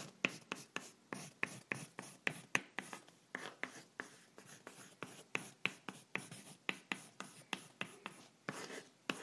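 Pencil writing on paper: a quick run of short scratching strokes, several a second, with a slightly longer stroke near the end.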